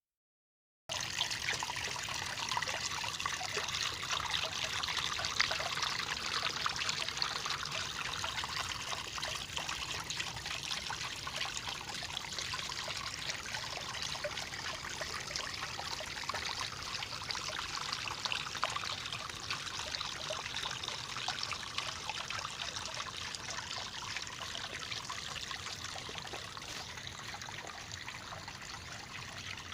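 Small landscape waterfall: water trickling steadily, with fine splashing. It starts abruptly about a second in and eases off slightly toward the end.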